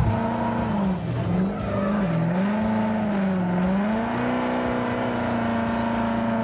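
Ford Mustang V8 drift car's engine revving hard under throttle while drifting, its note dipping and climbing several times and then holding high through the second half, with the tyres squealing as they spin.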